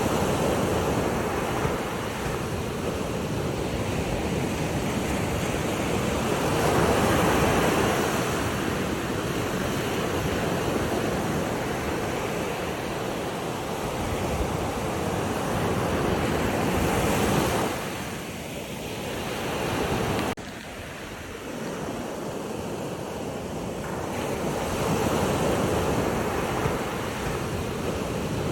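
Ocean waves washing and breaking in slow swells every several seconds, with wind on the microphone. The sound drops off suddenly about two-thirds of the way through, then builds again.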